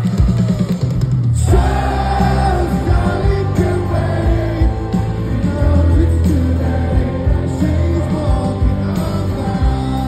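Live rock band playing, with electric guitar, drums and a lead vocal, heard from within the audience. The music drops out briefly about a second in, then comes back in.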